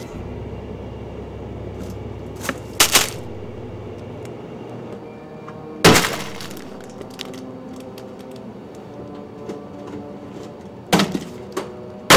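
Things crashing and breaking in a room: a few sharp impacts, two close together about three seconds in, the loudest about six seconds in, and two more near the end.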